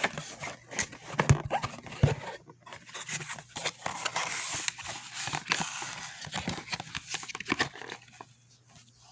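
Handling noise while a camera is being moved and propped into position: irregular clicks, knocks and rustling, with a couple of louder knocks in the first two seconds.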